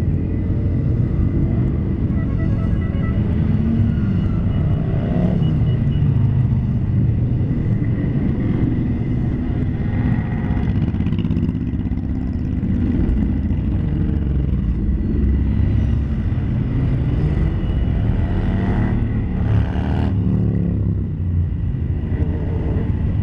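A long column of motorcycles passing one after another, a steady mass of engine noise. Every few seconds a single bike passing close rises and falls in pitch.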